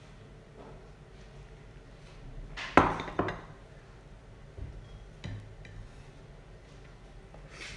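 Ceramic tableware clinking as a bowl, spoon and plate are handled during a meal eaten by hand. There is one sharp clatter about three seconds in, then a few lighter clinks and knocks.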